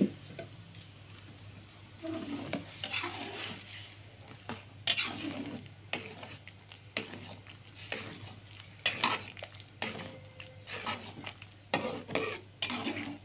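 Metal ladle stirring broth in a metal wok, scraping and clinking against the pan in irregular strokes.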